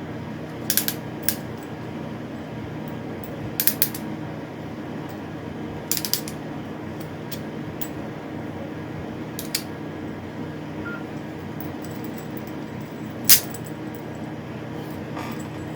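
Hand crimping tool clicking as it is squeezed onto a PL-259 coax connector: about six short, sharp clicks, some in quick pairs, at uneven intervals over a steady background hum.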